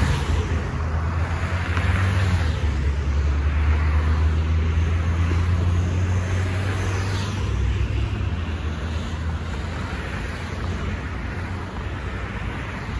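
Road traffic passing close by: cars and light trucks, their tyre noise swelling and fading as each one goes past. Under it a low engine drone runs until a little past halfway, then drops away.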